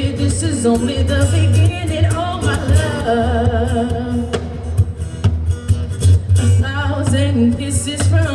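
A woman singing into a microphone, accompanied by an acoustic guitar, with a wavering vibrato on a held note about three seconds in.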